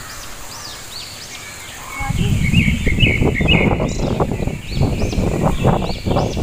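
Birds calling in the trees with repeated rising-and-falling high chirps, with a burst of louder, busier chatter about two seconds in. A loud low rumbling noise, such as wind on the microphone, sets in at the same moment and runs on.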